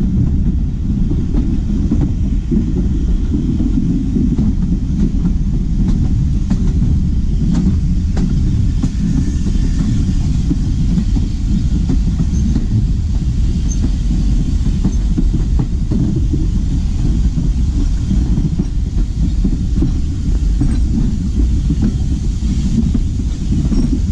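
Heritage railway train running along the line: a steady low rumble from the wheels and running gear, with faint clicks as the wheels pass over rail joints.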